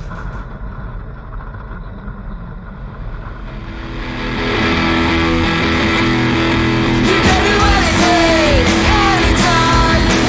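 Rock song with electric guitar as background music: a quieter passage for the first few seconds, then the full band builds in, with a singing voice entering near the end.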